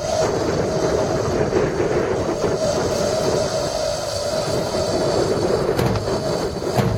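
Strong wind buffeting the microphone, a heavy irregular rumble over a steady background din.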